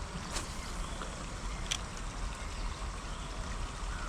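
Steady wash of trickling, flowing water with a low rumble under it, and two faint clicks about half a second and nearly two seconds in.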